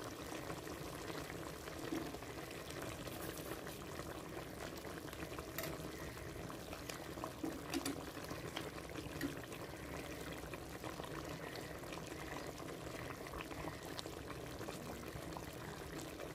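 Chicken and tomatoes simmering in their own juices in an uncovered clay pot, with a steady bubbling and a few faint clicks of metal tongs against the food and pot.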